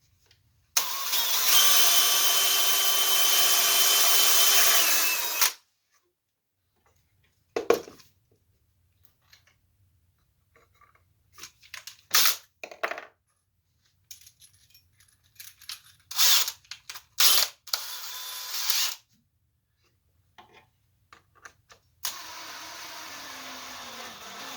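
Electric drill running steadily for about five seconds, boring a screw hole in the wooden drawer runner, followed by scattered knocks and clicks of handling wood and tools. Near the end a drill runs again more quietly, its pitch dropping as it drives a screw.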